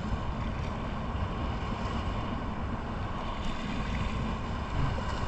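Steady wind buffeting the microphone, with a low rumble, over choppy lagoon water lapping around the wader.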